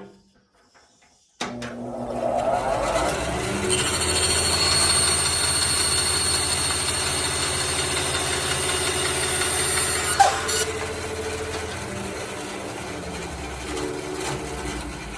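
Grizzly bandsaw switched on about a second in, its motor coming up to speed and running steadily while the blade cuts a wooden ring. About ten seconds in there is a knock and the high cutting tones drop away, leaving the saw running a little quieter.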